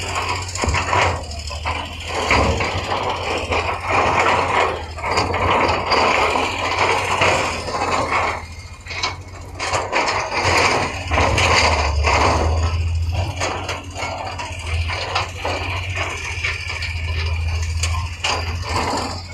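Heavy earthmoving machinery at work: a diesel engine running low and steady under repeated irregular metal clanks and knocks, like a track or bucket working against rock and earth.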